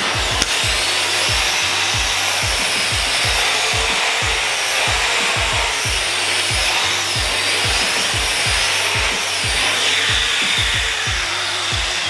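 Dyson Ball Animal 2 upright vacuum cleaner running with its tangle-free brush tool on the hose wand, sucking debris off a carpet: a steady rushing noise with a high whine that wavers up and down as the tool is moved. Background music with a steady beat plays underneath.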